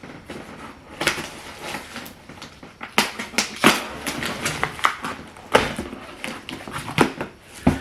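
A knife cutting open a cardboard shipping box: irregular sharp scrapes and taps as the blade slices the tape and cardboard.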